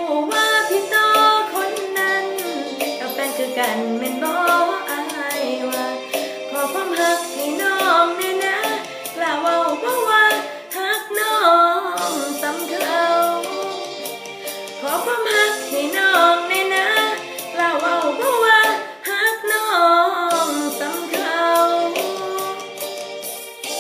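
A woman singing a Thai song in the Isan dialect over an instrumental backing track.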